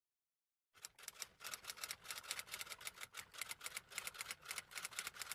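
A quick, even run of sharp clicks, about five or six a second, starting about a second in and cutting off abruptly near the end.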